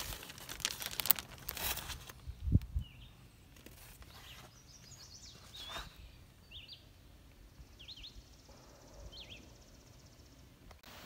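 Rustling and clicking of the phone being handled for about two seconds, a dull thump, then quiet outdoor background with small birds chirping several times.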